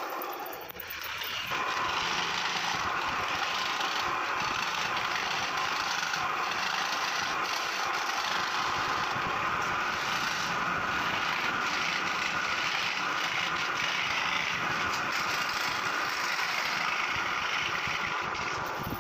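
Scroll saw running, its fine reciprocating blade cutting through a carved wooden panel to pierce out the lettering. It drops briefly about a second in, then runs evenly, and falls away near the end.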